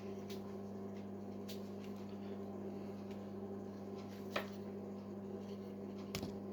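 Steady low electrical hum from an idling stick (arc) welder's transformer, after the weld is finished, with a few faint clicks.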